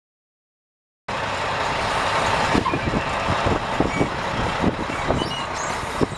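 Mack E7 12.0-litre inline-six diesel of a 1996 Mack CH613 semi truck idling steadily, the sound cutting in abruptly about a second in.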